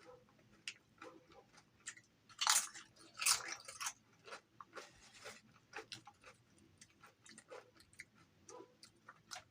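A person biting into and chewing crispy fried chicken close to the microphone: two louder crunches about two and a half and three and a half seconds in, then softer chewing with small wet mouth clicks.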